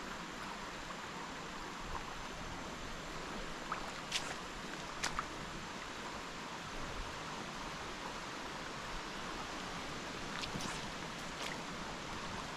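Shallow river riffle running steadily over a rocky bed, an even rush of water, with a few faint ticks about four and five seconds in and twice more near the end.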